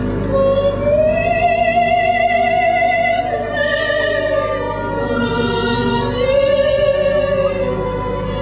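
Operatic singing: a voice sustains two long notes with vibrato, the first from about half a second in and the second from about five and a half seconds, over a steady low hum.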